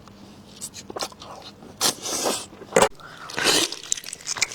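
A person eating stewed ribs, biting and chewing meat off the bone, with scattered sharp clicks and short wet, noisy bursts, the loudest about two and three and a half seconds in.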